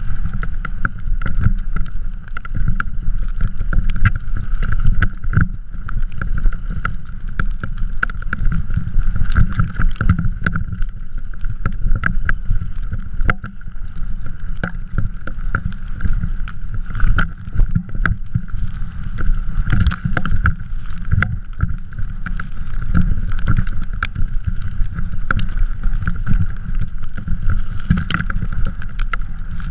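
A drift trike rolling and sliding over snow: a steady low rumble and rush from the wheels and wind, with frequent short knocks and rattles from bumps.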